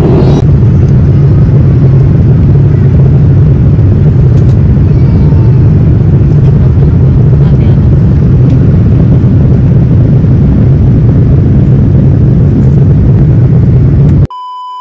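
Jet airliner cabin noise in flight, heard at a window seat: a loud, steady low rumble with a hiss above it. It cuts off abruptly near the end, replaced by a steady high test-card beep.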